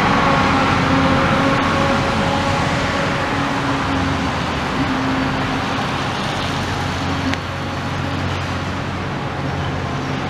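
Steady traffic and engine hum, with a low, even drone. A click about seven seconds in, after which it runs a little quieter.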